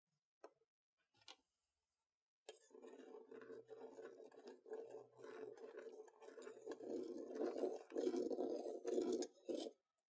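Metal teaspoon stirring salt into water in a small stainless steel cup, scraping and clinking rapidly against the cup's sides. It starts about two and a half seconds in and gets louder toward the end.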